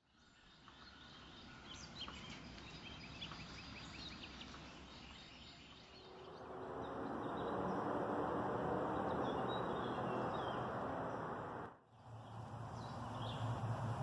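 Small birds chirping and calling outdoors over a steady rushing background noise. The background grows louder about six seconds in, with a few chirps still heard above it, and drops out briefly about twelve seconds in.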